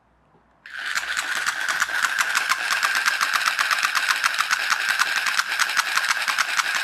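Small electric motor and plastic gearbox of a 1994 TOMY wire-controlled toy plane running in reverse, driving its noisemaker: a rapid, regular clatter meant as clapping or a bird noise. It starts abruptly about a second in and runs steadily.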